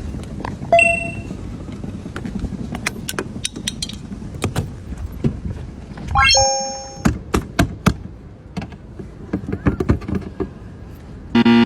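Scattered clicks and knocks, with a short ding about a second in, a chime of several held tones lasting under a second about six seconds in, and a brief buzz near the end.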